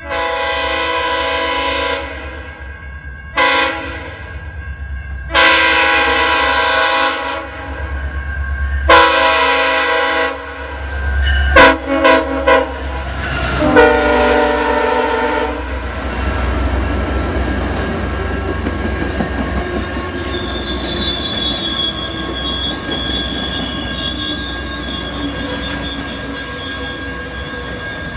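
Sounder commuter train's diesel locomotive blowing its multi-note air horn as it approaches: a long chord, a short one, two more long ones, a few quick toots, then one more long chord. The train then rolls past with a steady rumble of engine and wheels, and from about two-thirds of the way through a high squeal from the wheels.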